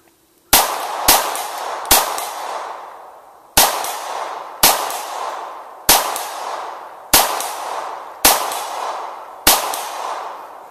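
Nine shots from a .22 semi-automatic pistol, fired at an uneven pace roughly a second apart, the first three a little quicker. Each crack is followed by an echo that fades over about a second.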